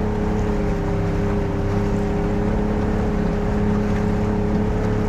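Boat engine running at a steady speed while the boat motors along the creek, a constant drone with no change in pitch.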